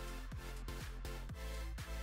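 Electronic dance-style music with a steady beat, about three beats a second, over held low bass notes.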